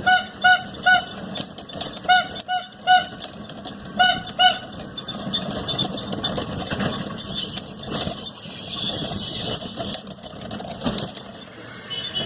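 A vehicle horn beeping in quick short toots: a few at the start, three more about two seconds in, and a final two about four seconds in. Steady street-traffic noise follows for the rest.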